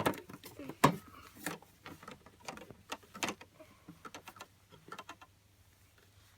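Irregular plastic clicks and taps from toy washing machines being handled, with a quick run of clicks about four seconds in.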